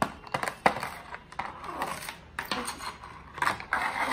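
Irregular plastic clicks and rustles as neckband earphones, their cable and earbuds, are worked out of a moulded plastic packaging tray.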